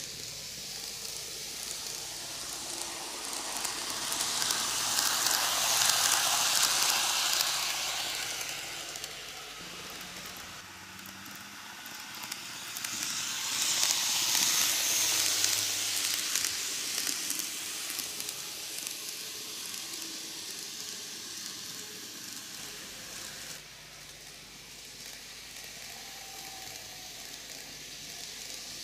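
N-gauge model electric train (Greenmax Tobu 6050 series, four cars) running on TOMIX superelevated curve track: a light hissing whir of the wheels on the rails and the small motor. It swells twice as the train comes round close to the camera, loudest about five to seven seconds in and again around fourteen seconds, then fades as it moves away.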